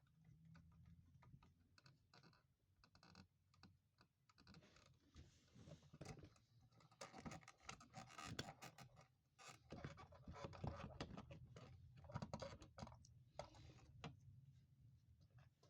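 Faint, irregular clicking and scratching of small hard objects being handled, growing busier about a third of the way in.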